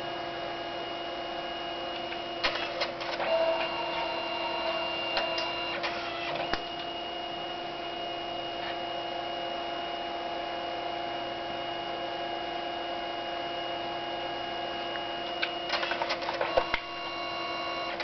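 Canon Selphy CP510 dye-sublimation photo printer printing: a steady motor whine as the paper is drawn through, broken by clusters of clicking and clatter a few seconds in, around six seconds in and again near the end as the sheet is fed back and forth between colour passes.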